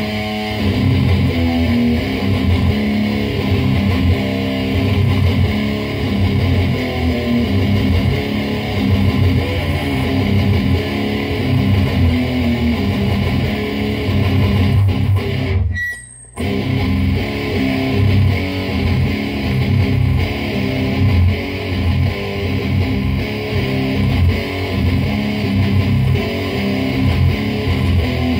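Heavily distorted electric guitar tuned to C standard, played through a Lone Wolf Audio Caveman pedal set fully up into a Fender Deluxe Reverb's bright channel and a 2x12 cabinet: crushing, scooped death-metal-style riffing. The playing stops for a moment about halfway through, then picks up again.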